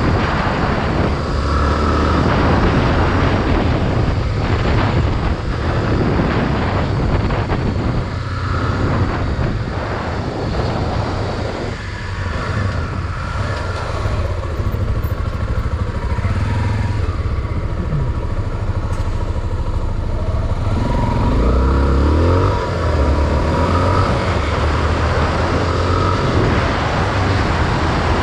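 Honda Tornado XR 250's single-cylinder four-stroke engine running steadily while the bike is ridden, heard with wind noise over the onboard camera. The pitch rises briefly about three-quarters of the way through as the engine revs up.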